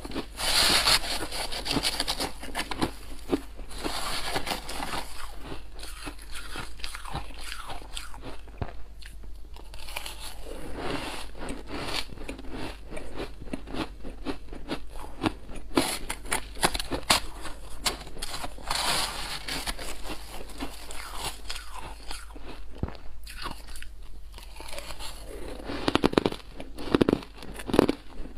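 Close-miked crunching of soft, snow-like white ice being bitten and chewed, mouthful after mouthful. The crackly crunches come in runs, with the loudest bites near the end.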